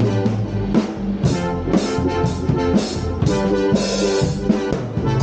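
Two drummers playing one drum kit together at the same time, a steady run of drum and cymbal hits over sustained pitched notes that change every half second or so.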